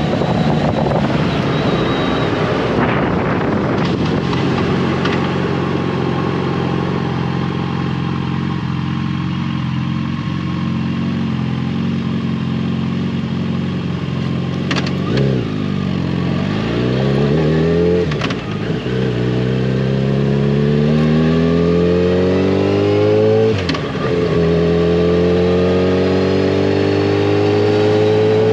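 Yamaha FJR1300's inline-four engine running at a steady cruise, then accelerating in the second half: the pitch climbs, drops sharply at each of three gear changes and climbs again.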